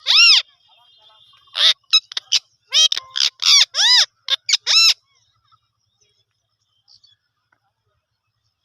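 Indian parakeet calling: a rapid series of about a dozen loud, shrill, arching squawks, stopping about five seconds in.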